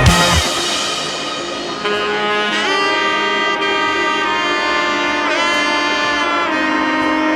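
Background music: a melody of long held notes on a wind instrument, with the pitch sliding into some of the notes.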